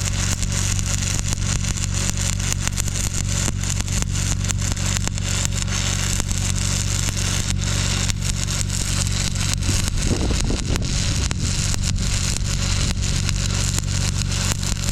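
Stick welding arc crackling and sizzling steadily as a rod burns along a steel joint, over a steady low hum.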